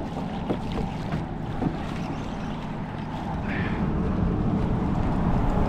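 A small craft under way on open water: wind buffeting the microphone over washing water, with a few light knocks.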